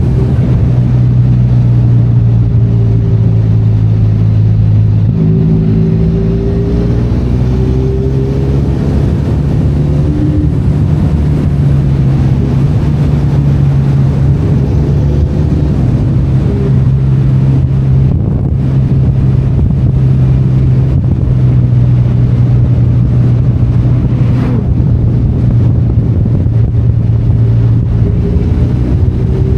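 Benelli Leoncino 500 Trail's parallel-twin engine running steadily under way off road, with a shift in engine pitch about five seconds in.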